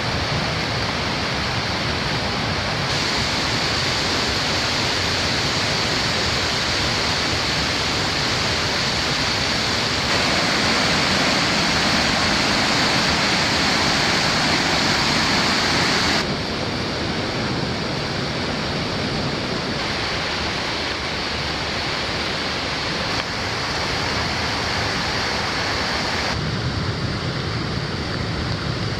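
Steady rush of running water, as from a creek or waterfall, with no distinct splashes; its level and tone shift abruptly several times.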